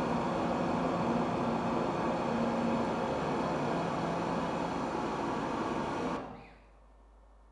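Dense, steady electronic drone made of a thick noise with many held tones. It fades out quickly about six seconds in, leaving near silence.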